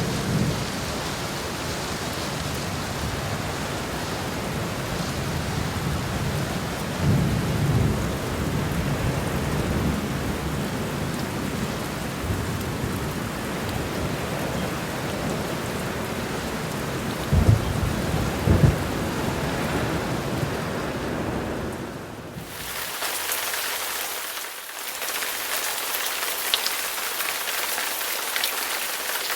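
Steady heavy rain with rolling thunder, deep rumbles swelling twice, about 7 and 17 seconds in. About 22 seconds in, the sound changes abruptly to a crisper, hissier rain with no thunder.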